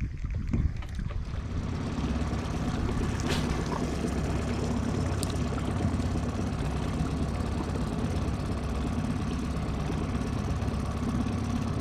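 Boat motor running steadily at an even speed.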